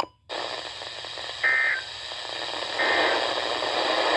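Weather radio receiver hissing with static after a brief beep, with two short bursts of warbling digital data tones about a second and a half apart, typical of the SAME end-of-message code that closes a NOAA Weather Radio alert.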